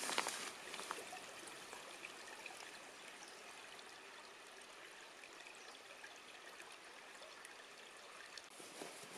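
Steady rush of flowing stream water, with a brief louder rustle and a few ticks right at the start.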